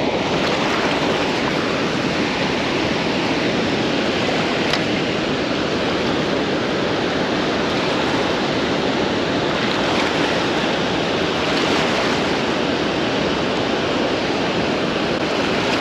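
Loud, steady rush of water pouring through a dam spillway.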